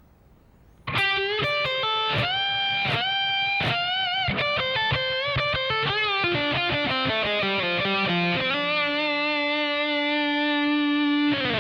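Electric guitar playing a lead phrase, starting about a second in: a few bent notes, a descending run of single notes, then one long held low note that is cut off sharply near the end.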